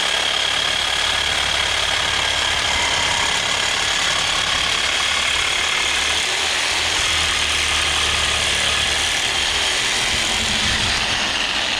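Reciprocating saw (Sawzall) running steadily as it cuts through steel exhaust pipe, with a constant high whine over the rasp of the blade; it stops right at the end.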